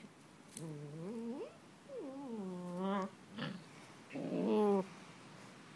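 Puppies whining and yelping as they wrestle in play: about four pitched, drawn-out calls, some rising in pitch.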